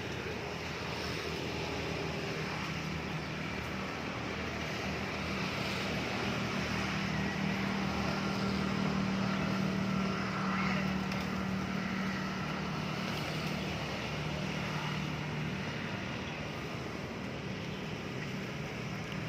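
A motor vehicle's engine running steadily with a low hum that grows louder from about six seconds in and fades after about twelve seconds, as if passing or idling nearby, over a steady outdoor background.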